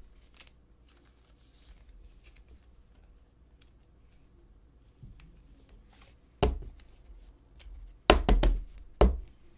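Trading cards and plastic card holders handled on a tabletop: faint clicks and rustles, then a few loud knocks in the last few seconds.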